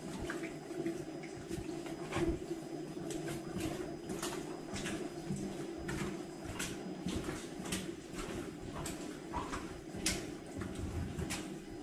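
Irregular clicks and knocks, a few a second, over a steady low hum, echoing in a narrow rock tunnel of an old copper mine.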